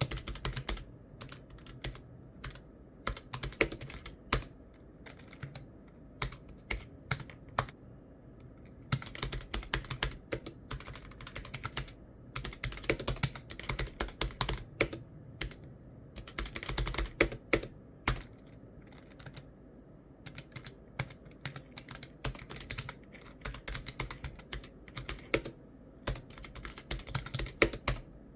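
Typing on a keyboard: rapid runs of keystroke clicks broken by short pauses and scattered single key presses.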